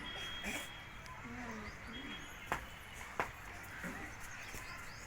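Faint bird chirps and low voices in the background, with two sharp clicks a little over half a second apart in the middle.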